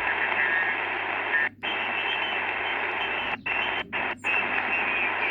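Sony ICF-SW100 shortwave receiver's small speaker giving steady band-limited static hiss with faint, garbled signal traces, cutting out briefly four times.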